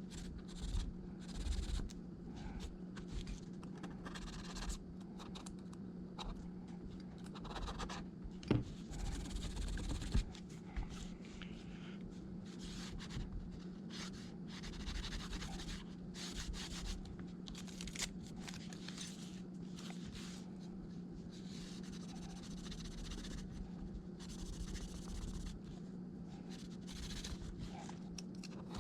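Repeated scratching and scraping of a hand tool on an iPad's frame as it is cleaned, with a few sharper ticks, over a steady low hum.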